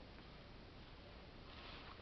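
Near silence: faint outdoor background hiss, with a brief soft rustle about one and a half seconds in.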